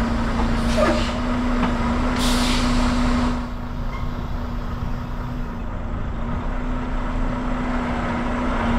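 Semi truck's diesel engine idling, heard from inside the cab, with air hissing twice from the air brakes: a short hiss just under a second in and a longer one about two seconds in.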